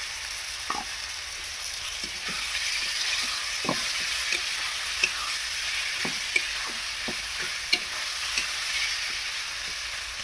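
Onions, tomatoes and green chilli-garlic paste sizzling in a metal kadhai, while a metal spatula stirs them with frequent short knocks and scrapes against the pan.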